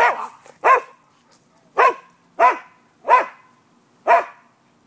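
A dog barking: six loud barks, roughly one a second, the first two coming close together.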